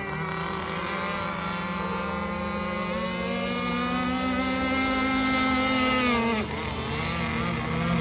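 Gas-powered RC boat's two-stroke engine running at high speed on the water, its pitch climbing slightly, then dropping sharply about six seconds in as the throttle is eased off and holding lower.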